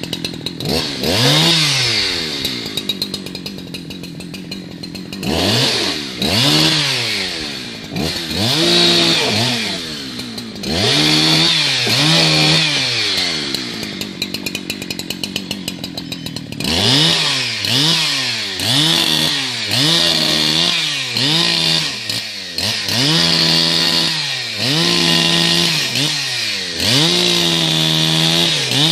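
Two-stroke chainsaw revved up to full speed and let back down to a ticking idle, over and over, a dozen or so times, as limbs are cut off a felled blue gum tree.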